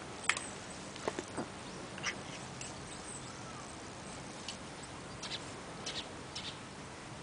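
A cat chewing a piece of food, heard as a scattering of short, sharp clicks and smacks at irregular intervals.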